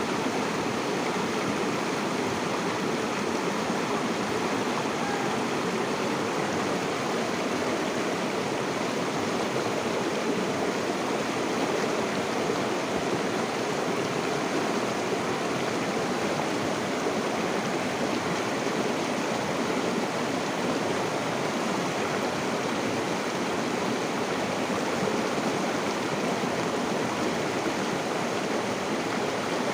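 Steady rushing and babbling of a flowing stream, an even water noise with no breaks.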